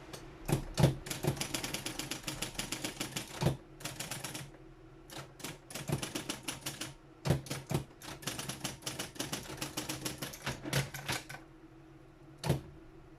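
Triumph-Adler 131D electric typewriter typing, with runs of rapid key strikes over the steady hum of its running motor. Three bursts are broken by short pauses, and a lone strike comes near the end.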